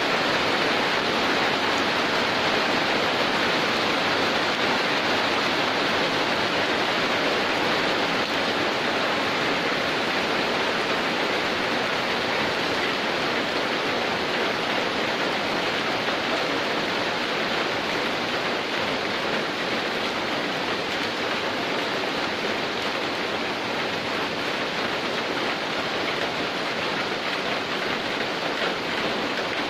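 Heavy rain falling steadily, a dense even hiss that eases slightly toward the end.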